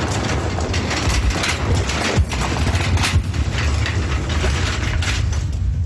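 Loud, low mechanical rumble from a film's sound track, with a rattling, clattering hiss over it and sharp knocks about two and three seconds in.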